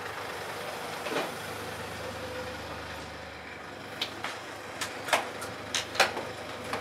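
Mercedes-Benz van idling. From about four seconds in come a run of sharp clicks and knocks at its open sliding door, the loudest near the end.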